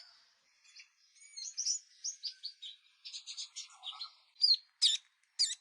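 A flock of small songbirds chirping: short, high calls in quick succession, sparse at first, then busier, with a few loud, sharp chirps near the end.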